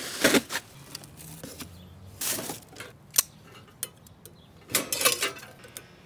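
Handling noise from unpacking a flat-packed metal wire cage: a plastic wrapping sheet rustles, and the metal panels clink and scrape against each other in a few short bursts and sharp clicks.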